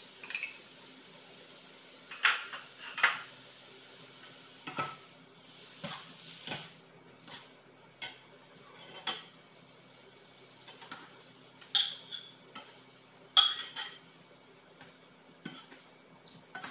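Kitchen tongs clinking and scraping against a nonstick wok while tossing noodles: irregular short clinks with gaps between them, the sharpest about two-thirds of the way through.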